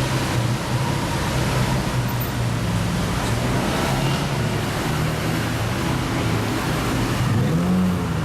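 Lamborghini Aventador SV's V12 engine running at a steady low cruise under road and wind noise, its revs rising briefly near the end.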